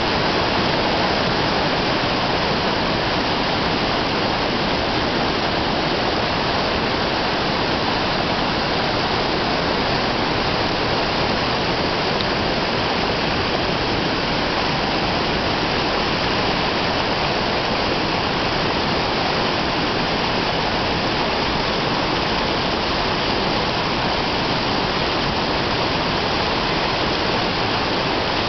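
Steady rush of water pouring over stepped cascades and a waterfall, an even, unbroken noise.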